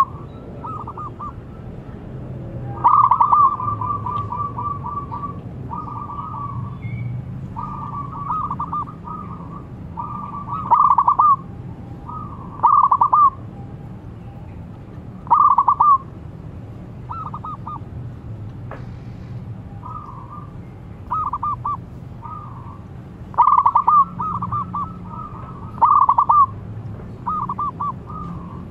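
Zebra doves cooing: repeated phrases of quick staccato notes, a loud phrase every few seconds with softer phrases from other doves joining in between.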